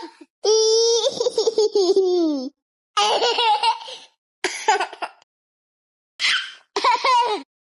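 A baby laughing and making noises: a long high-pitched squeal that slides down at the end, then several short bursts of giggling, with dead silence between the bursts.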